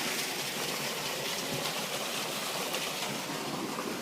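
Steady rushing of a stream's flowing water, an even hiss.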